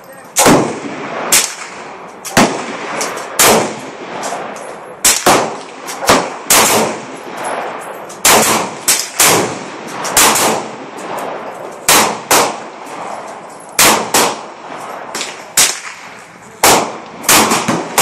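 Gunfire on an outdoor shooting range, including a handgun firing close by: irregular shots, sometimes nearly two a second, some loud and near, others fainter. Each shot is followed by a short echo.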